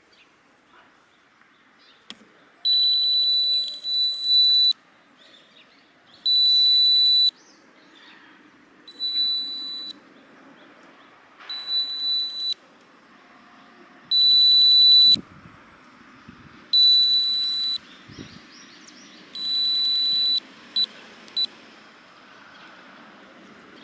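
Nubeam NB-600 bicycle safety light's electronic bell sounding: seven bursts of a high electronic tone, each a second or two long and about two and a half seconds apart, followed near the end by two quick short blips.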